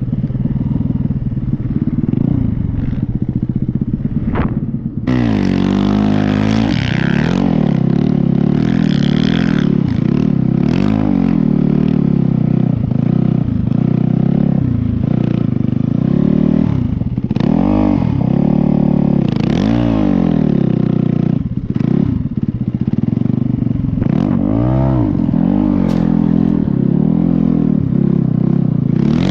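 Snow bike's motorcycle engine revving up and down over and over as it is ridden, its pitch rising and falling every second or two. It gets harder and brighter from about five seconds in.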